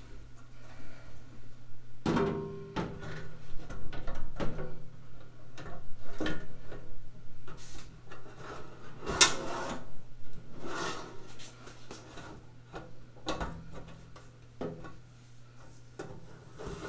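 Sheet-metal tool cart drawer being fitted onto its ball-bearing slide channels and slid out and in, with a series of irregular metal knocks, clicks and sliding scrapes starting about two seconds in.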